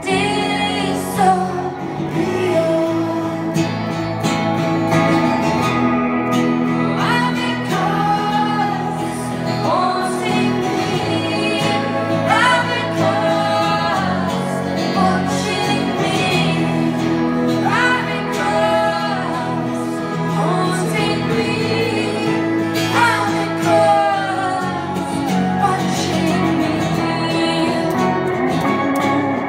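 A woman singing a song live over guitar chords, her voice sliding up in pitch at the start of repeated phrases.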